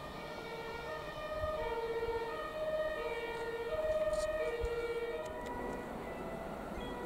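Two-tone siren alternating between a lower and a higher note about every half second, growing louder to a peak around four seconds in and fading out after about five seconds.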